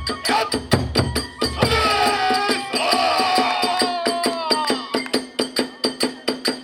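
Kagura hayashi ensemble playing: drum and small hand cymbals beat a quick, even rhythm, while a bamboo flute holds a wavering melody through the middle.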